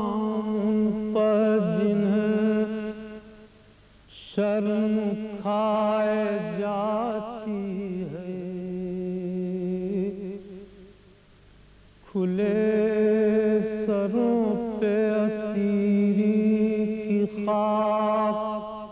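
Unaccompanied man's voice chanting a salam, an Urdu devotional elegy, in long melodic phrases with wavering pitch, broken by short pauses.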